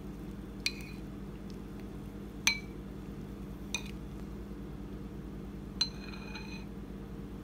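A metal spoon clinks against a white ceramic soup bowl four times as it stirs and scoops the soup. Each tap rings briefly, and the second is the loudest. A steady low hum runs underneath.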